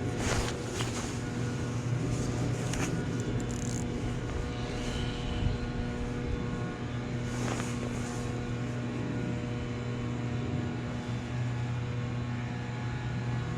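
A boat's motor running at a steady speed, a constant low hum, with a few brief gusts of hiss over it.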